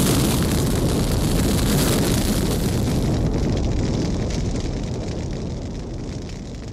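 Explosion with fire: the dense rumble of the blast and burning at full strength. Its upper range thins out about three seconds in, and then the whole sound fades steadily toward the end.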